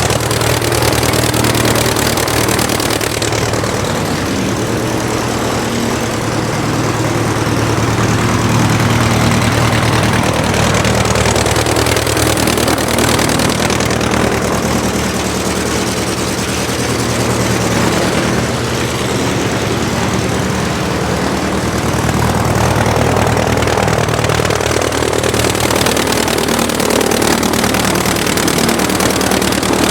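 Aircraft engine running steadily with a deep, even drone, its level swelling and easing slightly over time.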